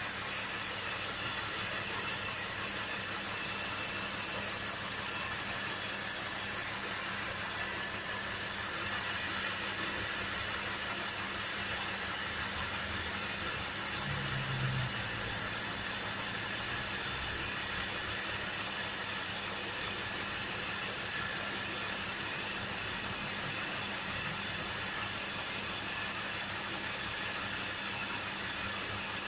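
Car engine idling steadily, with a constant high-pitched hiss or whistle over it. The engine has a vacuum leak that has not yet been found.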